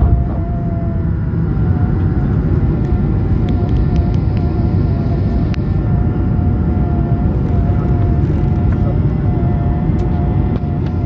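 Jet airliner cabin noise during takeoff: a loud, steady rumble of the engines and rushing air, with a thin high whine that wavers slightly in pitch.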